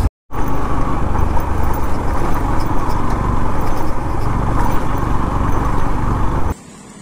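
Motorcycle ride with the Yamaha FZ-X's single-cylinder engine running steadily, mixed with a heavy, even rush of wind on the microphone. It drops out briefly just after the start and cuts off suddenly near the end to a much quieter background.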